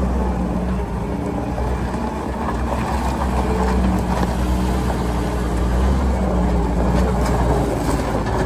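Case 420 skid steer loader's 82 HP Case diesel engine running, its pitch and level shifting a little.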